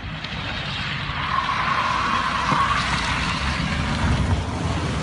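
Volkswagen Jetta's engine running under throttle as the car slides past on asphalt, with a hissing scrape of sliding wheels that swells about a second in and eases near the end.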